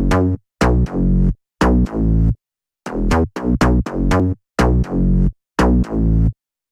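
Electronic music: chopped synthesizer chords over heavy bass, cut into short blocks of about half a second that start and stop abruptly, with brief silences between them.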